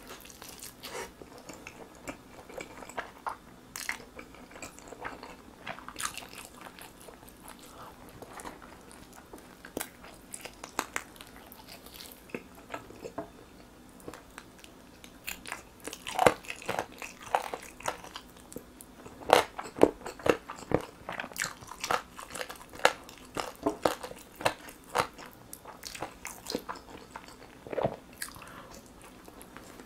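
Close-miked biting and chewing of grilled chicken drumsticks in a sticky dark glaze: wet mouth smacks and crunches. The bites come thicker and louder in the middle of the stretch, then thin out.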